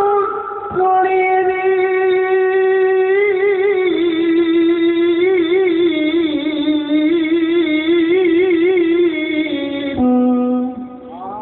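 A Qur'an reciter's unaccompanied voice holds one long, ornamented note for about ten seconds in melodic mujawwad style, the pitch wavering and dipping gradually. It breaks off about ten seconds in, and a shorter, lower note follows.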